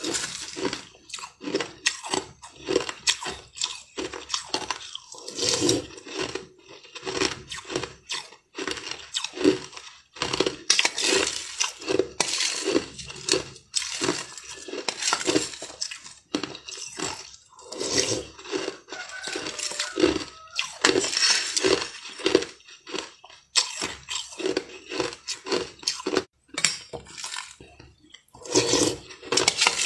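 Crushed ice being chewed with the mouth close to the microphone: a dense, uneven run of loud crunches with short pauses between mouthfuls.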